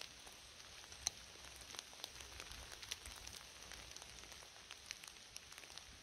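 Light rain falling in a broadleaf forest: a faint, steady hiss with many separate drops ticking close by, the sharpest one about a second in.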